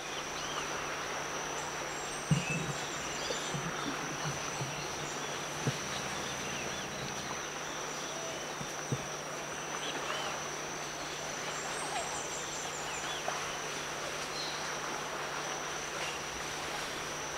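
Evening outdoor ambience: insects keep up a steady high-pitched trill, with scattered short chirps and a faint low hum underneath. A few soft knocks stand out, the loudest about two seconds in.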